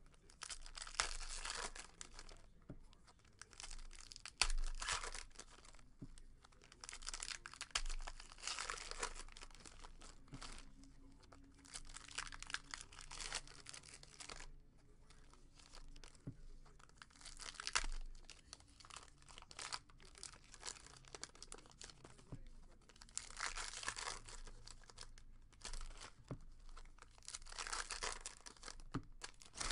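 Baseball card pack wrappers being torn open and crinkled, in irregular rustling bursts of about a second each.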